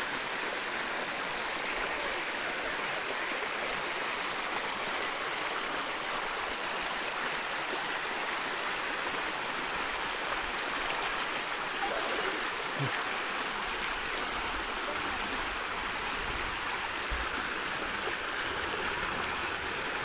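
Shallow stream water rushing steadily over sloping rock in a small waterfall.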